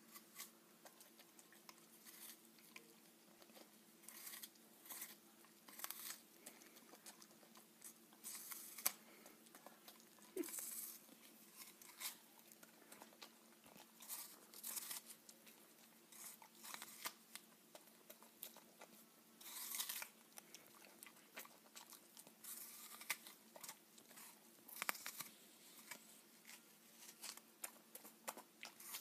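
A dog biting and chewing an apple held out in a person's hand: irregular crisp crunches every second or so, over a faint steady hum.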